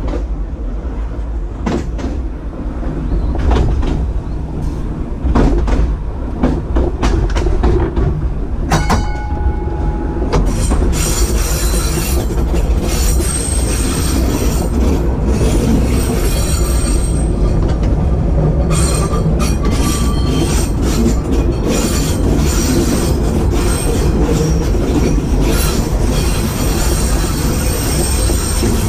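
W7 electric tram running along its track, heard from the cab: clicking over the rails, with a short ringing tone about nine seconds in. Then high-pitched wheel squeal as the tram rounds a curve, lasting to the end.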